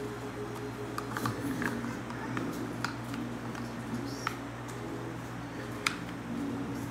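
Scattered clicks and knocks of the plastic hose and parts of a Bissell Power Force Compact vacuum being handled and taken apart with the motor off, the sharpest click near the end, over a low steady hum.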